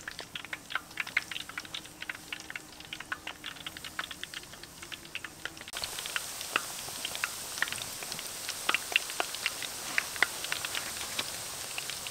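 Battered chicken pieces deep-frying in hot oil in a large wok, crackling with a steady run of small, irregular pops.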